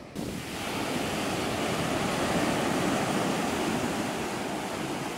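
Sea surf breaking and washing up a shingle beach: the rush of the wave swells over the first couple of seconds, then slowly fades as the foam spreads up the shore.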